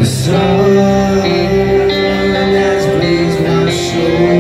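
A rock band playing live on amplified electric guitars, bass and drums in an instrumental passage, with a cymbal crash at the start.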